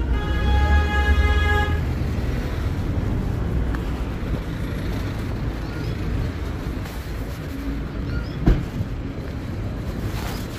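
Street traffic running steadily, with a vehicle horn sounding once for about a second and a half near the start. A single sharp knock comes about eight and a half seconds in.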